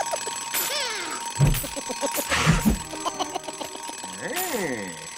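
Cartoon sound effects of a twin-bell alarm clock ringing as it hops about, with a couple of low thumps and sliding whistle-like glides, one rising and falling near the end.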